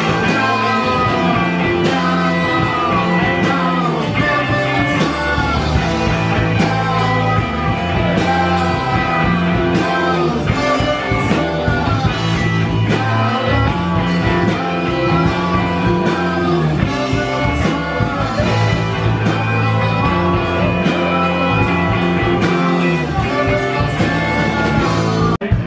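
Live rock band playing: electric guitars, bass and drums, with a singer's voice over them.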